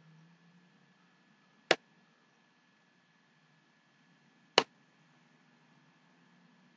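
Two sharp computer mouse clicks, about three seconds apart, as lines are drawn on screen; otherwise near silence.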